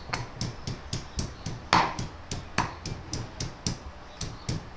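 A steady rhythm of sharp taps, about four a second, with two louder knocks about two seconds in.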